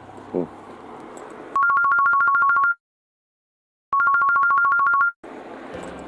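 Telephone ringing: two bursts of a fast warbling two-tone trill, each about a second long, separated by dead silence. Faint outdoor background comes before and after.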